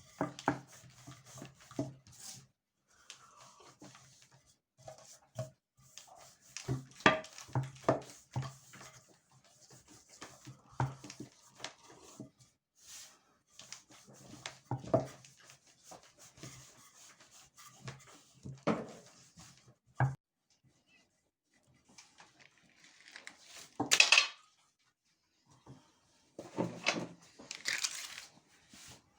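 Intermittent knocks, taps and clatter of kitchen work with dishes, utensils and wooden surfaces, with a louder rustling clatter about 24 seconds in and another near the end.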